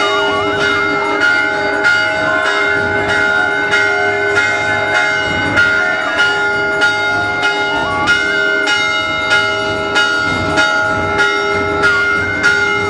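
Temple bells ringing over and over in a steady rhythm, about one and a half strokes a second, over a held tone that wavers up and down in pitch.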